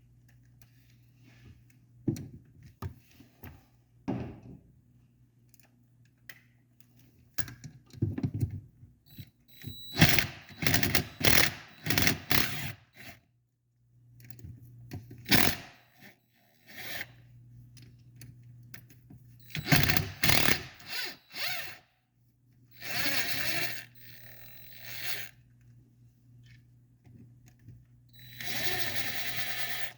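Tools working on the three 8 mm bolts that hold the shift mechanism plate on a 1987 Honda TRX250R engine: irregular metal clicks, clinks and scrapes in clusters, with a few steady rasping stretches of a second or two in the second half.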